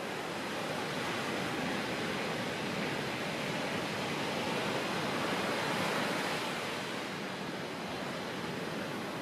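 Steady outdoor rushing noise with no distinct events, swelling slightly about six seconds in.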